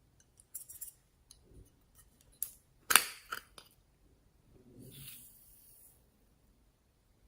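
Slime-making handling sounds: a run of sharp clicks and snaps, the loudest about three seconds in, then a soft rustle for about a second and a half.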